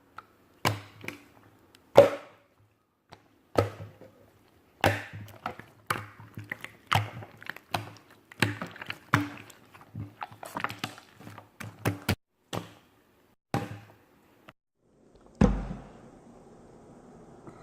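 A series of irregular sharp knocks, a dozen or more, each with a brief low ring. About fifteen seconds in comes a heavier thud, followed by a faint steady hum.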